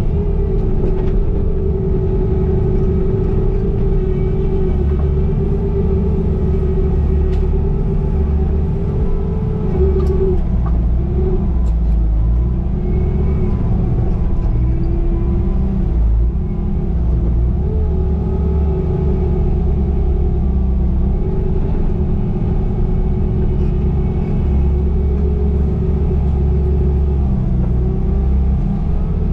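Bobcat T595 skid steer's diesel engine running steadily under work, its pitch dipping and recovering briefly a few times.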